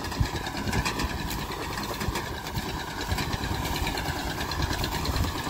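Eicher 241 tractor's single-cylinder diesel engine running steadily under load, working a front-mounted reaper through standing wheat.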